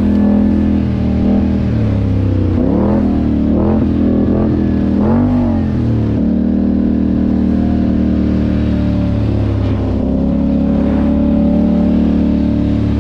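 ATV engine running while riding, the throttle opening and easing off several times in the first five seconds, then holding a steady pitch.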